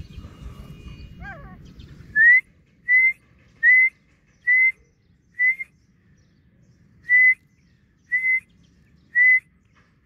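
A run of eight short, clear whistles, about one a second with a longer pause near the middle, each holding one pitch or rising slightly.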